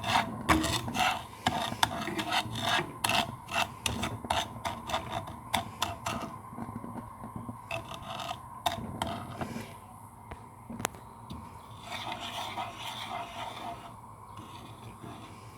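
A spoon scraping and knocking against a frying pan, stirring sugar as it melts into caramel. The strokes come thick and fast at first and thin out after about halfway.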